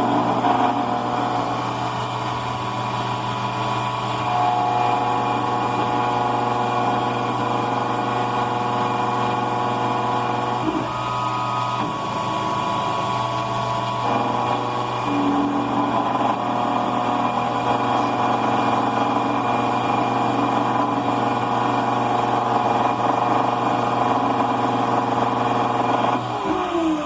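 Triax E-Code CNC key cutting machine milling a Honda laser-cut key blank: a steady motor hum and spindle whine, the pitch shifting a few times as the cutter works, then spinning down near the end as the cut finishes.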